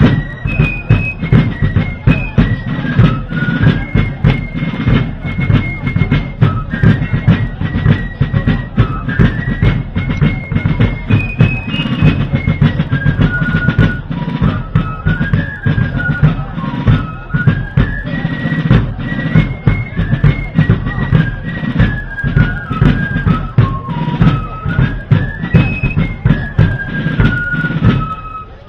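Fife and drum corps playing: wooden fifes in unison carry a single high, stepping melody over continuous rapid drumming.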